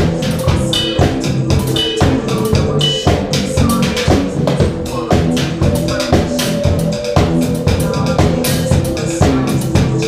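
A rock band playing live: a drum kit keeping a steady beat, with bass guitar and synthesizer. No singing is heard.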